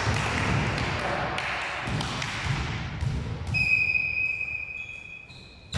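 Gym noise from a volleyball game, then a whistle blown about three and a half seconds in and held for about two seconds as one steady shrill tone.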